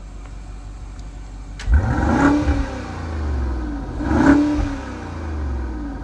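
BMW X5 50i twin-turbo V8, heard at its quad exhaust tips in Sport mode, being blipped: a low steady rumble, then a sudden sharp rev about two seconds in and a second rev about two seconds later, each rising and falling in pitch.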